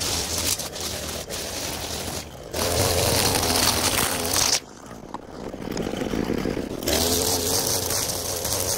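Gas string trimmer engine running at high speed as the line cuts through tall grass and weeds. The sound drops away for about two seconds midway, then comes back to full speed.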